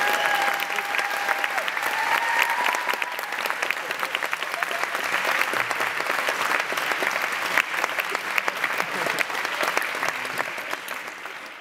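Audience applauding, dense clapping that thins and fades near the end.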